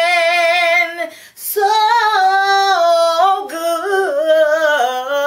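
A woman singing an unaccompanied gospel praise song. She holds a long note with vibrato, takes a short breath about a second in, then carries on in long sustained notes that step up and down.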